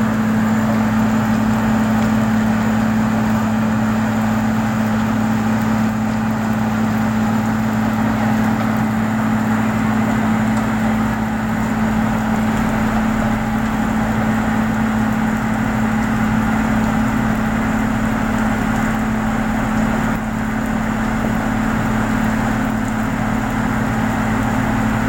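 An engine running steadily at a constant speed, a loud, even low drone with no change in pitch.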